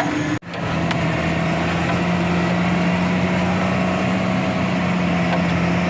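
Tractor engine running steadily at a constant pitch, with a brief cut-out of all sound about half a second in.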